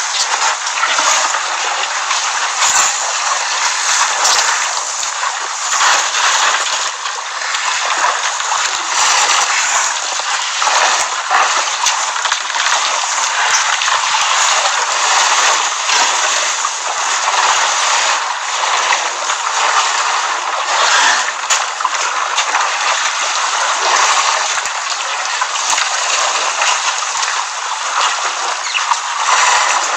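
Water at a waterhole splashing and gushing steadily, with many small splashes and no break.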